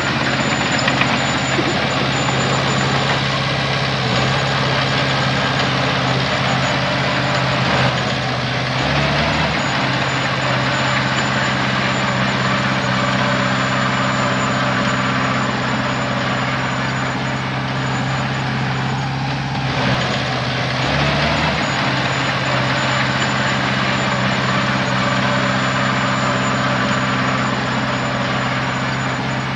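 Heavy diesel engine of earthmoving machinery running steadily under work, with a broad mechanical clatter over it and two brief changes in engine speed, about nine seconds in and again about twenty-one seconds in.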